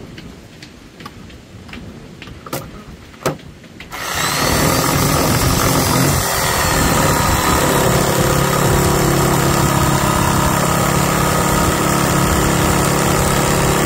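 A few light taps, then about four seconds in an electric power tool starts up and runs loud and steady, cutting into hardwood.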